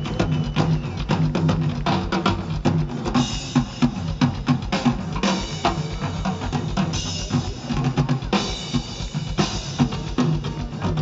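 Amplified live drum kit played fast, with bass drum, snare and rimshots. Cymbals wash over the beat in four stretches through the middle.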